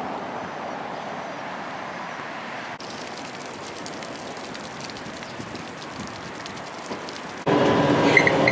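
Steady running noise of a moving tram, an even hiss and rumble, broken by an abrupt jump about three seconds in. Near the end it turns suddenly much louder, with the tram's motor hum and short high squeaks over it.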